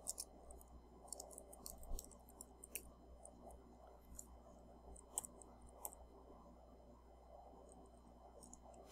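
Faint computer keyboard typing: scattered, irregular key clicks over a low room hum, with one sharper click near the end.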